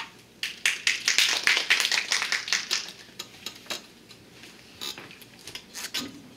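A rapid run of sharp clicks and taps, dense for about two and a half seconds, then thinning to scattered single clicks.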